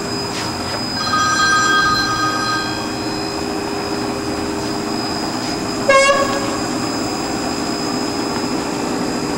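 Fadal 4020HT CNC vertical machining center running, its axes moving back and forth with a steady mechanical hum. A brief high squeal comes about a second in, and one short sharp squeak about six seconds in.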